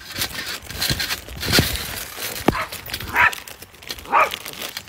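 Thuds of someone bouncing on a trampoline mat, then a dog barking twice, short sharp barks about three and four seconds in.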